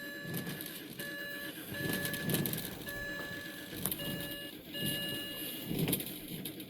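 BMW's electronic warning chimes beeping in a string of steady tones, about one a second, with a few sharp clicks between them, as the car is tried in deep cold and fails to start.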